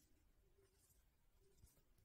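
Near silence, with a few faint soft rustles of yarn and knitted fabric handled while a seam is sewn up with a yarn needle.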